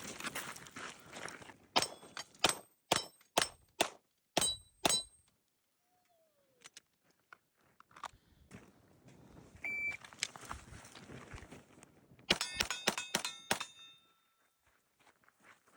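Airsoft gun shots with BBs striking steel targets, each hit a sharp crack with a short metallic ring: about seven spaced hits in the first five seconds, a short high beep near ten seconds, then a quick string of hits a couple of seconds later.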